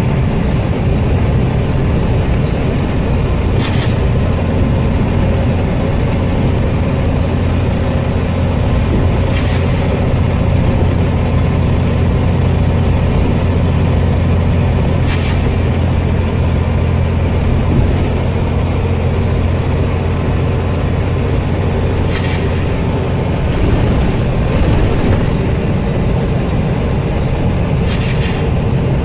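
Scania Omnicity bus's diesel engine running steadily, with a short sneezing hiss of escaping air from its air system every few seconds, the sign of worn-out air tanks.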